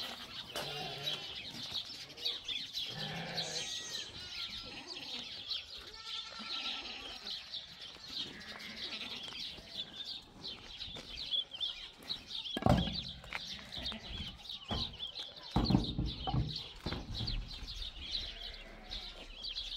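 Goats bleating, with small birds chirping throughout. Bursts of low rumble come about two-thirds of the way through.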